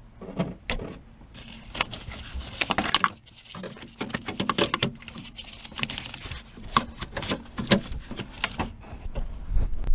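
Irregular clinks, clicks and knocks of metal tools and parts being handled during hands-on work on a car, some coming in quick rattling clusters, with a heavier knock near the end.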